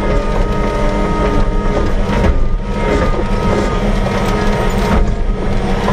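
Engine of a small farm vehicle running steadily while being driven, with a constant low hum and scattered small clicks.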